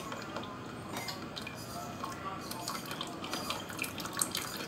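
Melted china grass (agar) liquid dripping and trickling through a plastic strainer into a pot of hot milk, with small clicks of a steel spoon working it through the mesh.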